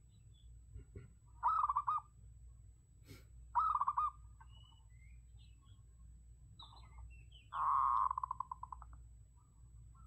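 Zebra dove cooing: three rolling coos, about 1.5, 3.5 and 7.5 seconds in, the last one longest and trailing off in a rapid stutter of notes. Faint high chirps sound between the coos.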